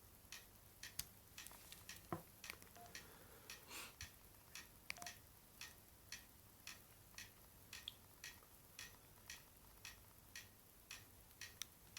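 Near silence with faint, even ticking, about two ticks a second.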